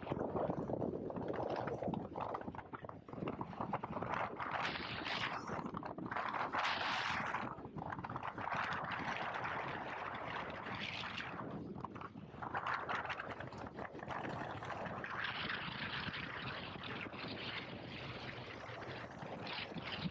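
A motorcycle on the move, heard from an on-board camera: wind rushing over the microphone swells and dips every few seconds, with the bike's running sound beneath it.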